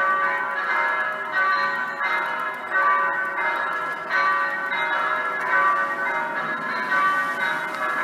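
Electronic church bells played through loudspeakers, simulating a peal of several swinging bells tuned in B: strikes overlap continuously, a fresh one roughly every half second to second, each note ringing on under the next.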